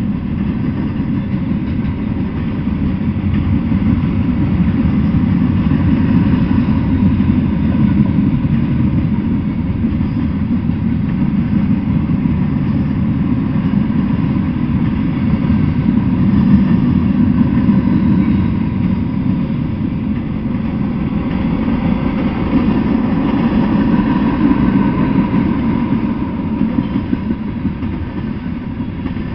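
Freight train cars rolling past, flatcars and then tank cars: a loud, steady rumble of steel wheels on the rails that swells and eases slightly as the cars go by.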